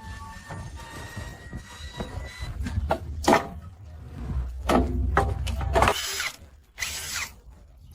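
Electric rickshaw's motor whine fading out during the first two seconds or so, over a low rumble. Several short squeals and clatters follow, spread over a few seconds, with the rumble stopping about six seconds in.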